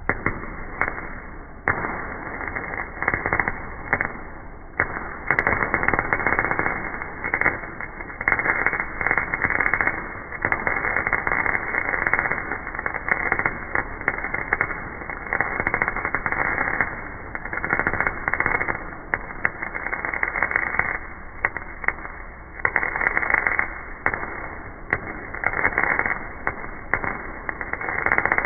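Lincoln electric arc welder crackling as beads are laid, the arc sputtering in irregular bursts that stop and restart every second or two.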